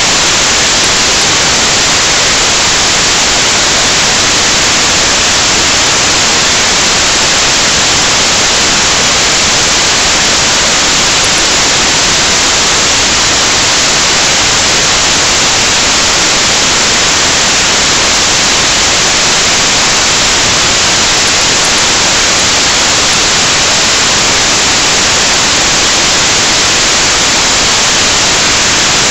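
Loud, steady static hiss with no voice or other sound through it: a recording fault where the audio went out.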